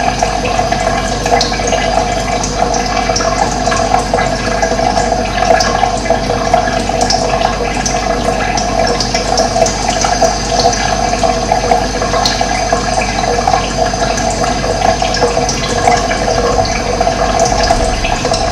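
Steady running water, with short high bird chirps now and then over it.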